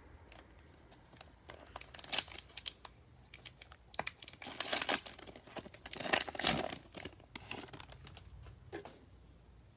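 A trading card pack wrapper being torn open and crinkled by hand, in several bursts of crackling that are loudest about halfway through.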